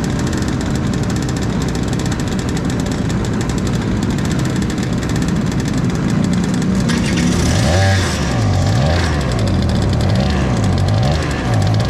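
Two-stroke IAME kart engine idling while waiting on the grid. From about eight seconds in, it is revved up and down over and over, about once a second.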